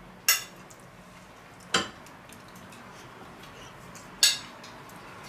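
Metal fork clinking against a plate three times, short sharp clinks a second or two apart.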